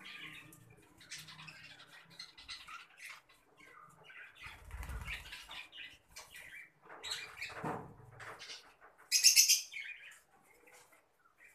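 Caged Fischer's lovebirds chirping in short, scattered calls and fluttering their wings as they shift along the perch, with one short loud shrill burst about nine seconds in.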